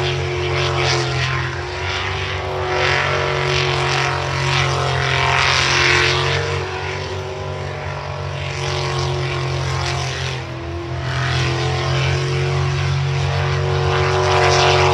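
Jet sprint boat engine running hard at high revs as the boat races through the water course, a steady note that wavers slightly in pitch, dipping briefly about ten seconds in before picking up again.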